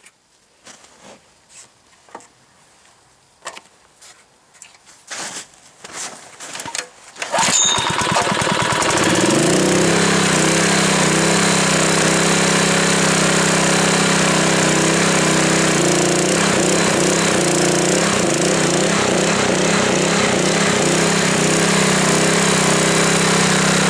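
A few scattered clicks and knocks, then, about seven and a half seconds in, a Honda GX160 single-cylinder four-stroke petrol engine starts, comes up to speed within a second or two and runs steadily, driving a hydraulic pump.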